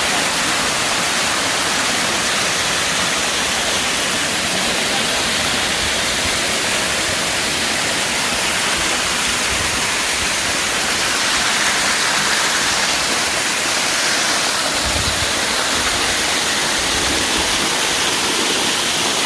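A tall waterfall's water rushing, a steady, even hiss of falling water.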